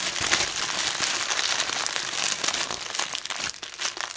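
Silver foil gift wrapping crinkling as it is pulled open by hand: a continuous run of small, dense crackles.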